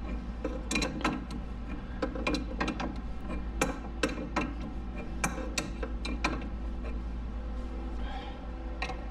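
Ratchet wrench clicking in irregular runs as a coil-spring compressor's threaded rod is loosened on a front suspension, over a steady low hum.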